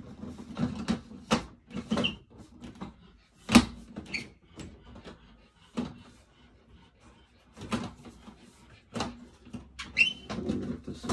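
Plastic light-fixture cover and trim being handled and twisted against the ceiling-mounted base: irregular sharp clicks and knocks, the loudest about three and a half seconds in.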